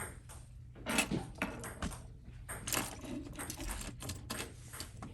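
Irregular small clicks and light metallic taps of hand tools working on a smartphone's parts during disassembly.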